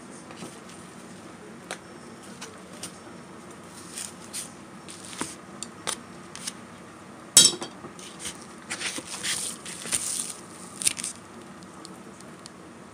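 Scattered light clicks and knocks of wooden chopsticks and a foam meat tray handled over a pot, busiest in the middle, with one sharper clack about seven seconds in, over a steady low hum.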